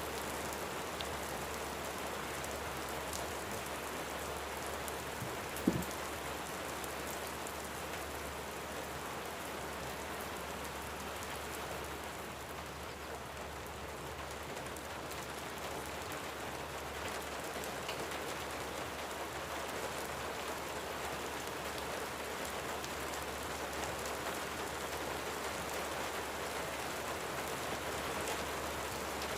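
Steady rain falling, an even hiss of rain on a surface, with a single sharp knock about six seconds in.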